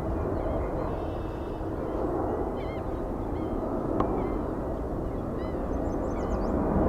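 Steady low rumble of airport jet noise, with small birds chirping repeatedly over it and a single sharp click about four seconds in.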